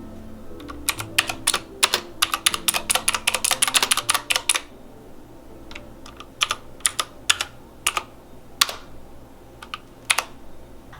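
Typing on a Razer BlackWidow V3 mechanical keyboard: a quick run of key clicks for a few seconds, then scattered single keystrokes.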